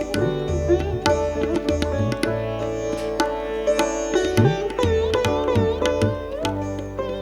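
Live instrumental music: a plucked-string melody over steady held drone tones, with deep notes that slide up in pitch again and again.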